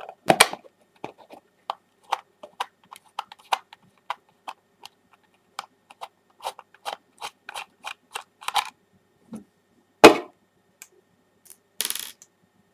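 Screwdriver working the two small screws out of a DT-830B multimeter's plastic case: a run of light, irregular clicks, a few a second, with one louder knock about ten seconds in and a short rustle near the end.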